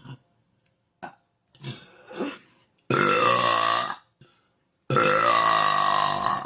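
Two long, loud belches, the first a little over a second and the second about a second and a half.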